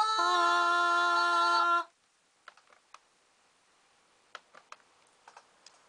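A woman's voice holding one sung note for about two seconds, with a second, lower harmony note joining a moment later, the two sounding together as a two-part harmony and stopping together. Then a few faint clicks at the computer.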